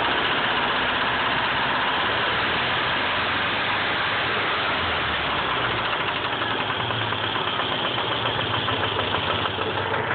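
Nissan KA24 2.4-litre four-cylinder engine idling steadily with a fast, even knocking rattle. The owner cannot tell whether it is rod knock, timing chain rattle or a noisy lifter.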